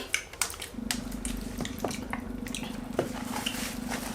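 Close-miked eating sounds of spaghetti and meatballs: wet clicks, smacks and slurps of chewing. A steady low hum comes in about a second in and lasts almost to the end.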